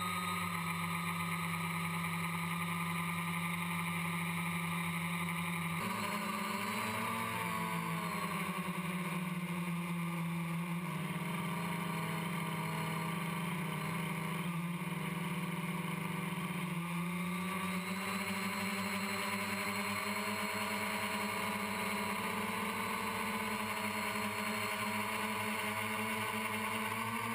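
Multirotor quadcopter's electric motors and propellers droning steadily, recorded by the camera on board, with a hiss of wind. The sound changes abruptly about six seconds in, and after that its pitch wavers up and down several times.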